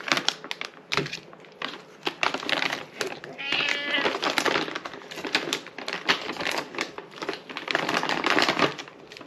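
Plastic food packaging crinkling and rustling in quick crackles as the contents of a spaghetti kit, a sauce pouch and a noodle tray, are pulled out of the bag. A cat gives a short meow about three and a half seconds in.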